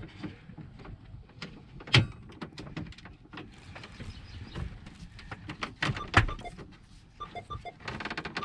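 Scattered clicks, taps and knocks of hands working the key and ignition lock cylinder in a 1978 Chevy C50's steering column, pushing it in and turning it to release it. The two loudest knocks come about two and six seconds in, with a fine rapid rattle near the end.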